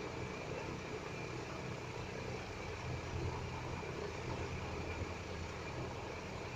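Steady low mechanical hum over an even background noise.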